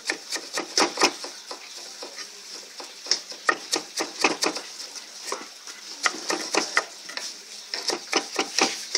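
Knives chopping mustard greens against a wooden board: an uneven run of quick, crisp chops, several a second.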